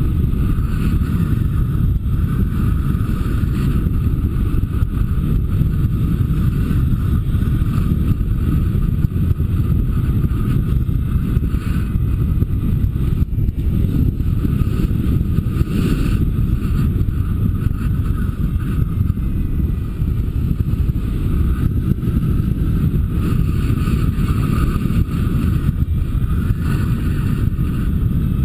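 Steady wind rushing over the microphone of a camera mounted on a paraglider pilot in flight, a loud, even low rush without breaks.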